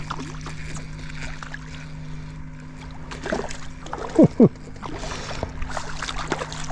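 Steady low hum from the boat with light water splashing as a hooked crappie is brought alongside. Two sharp falling squeaks about four seconds in are the loudest sounds.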